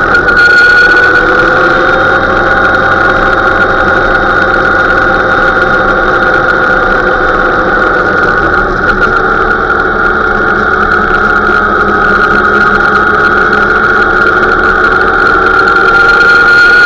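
Motorcycle engine running steadily at about 3,000 rpm under way. Its note sags slightly in the middle and climbs again near the end.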